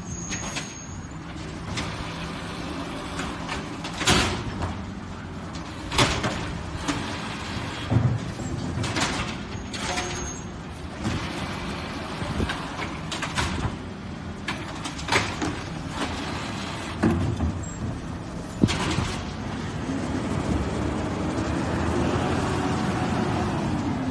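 Garbage truck at work: its engine runs steadily under repeated loud bangs and clanks, about a dozen spread through, and revs up near the end.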